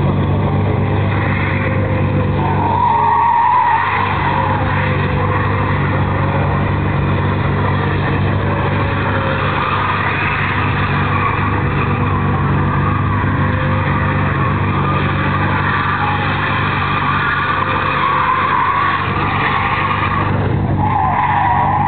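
A BMW E39 530d's 3.0-litre straight-six turbodiesel is held at high, steady revs while the rear tyres spin and squeal in a smoky burnout, circling in donuts. The tyre squeal swells and fades as the car turns, loudest about three seconds in and again near the end.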